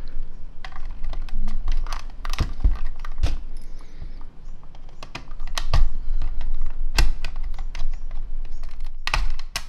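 Irregular sharp plastic clicks and taps from a small screwdriver prying at the snap-fit latches of a Sony WM-EX19 Walkman's plastic case, which keep resisting being opened.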